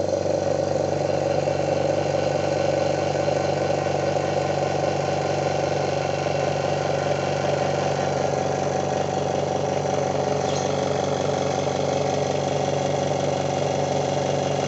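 Oil-less 3/4 hp air compressor motor running steadily.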